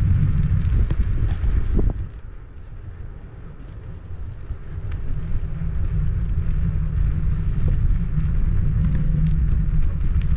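Wind buffeting the microphone of a GoPro Max 360 camera moving along a paved path at riding speed, a steady low rumble. It drops away about two seconds in and builds back over the next few seconds.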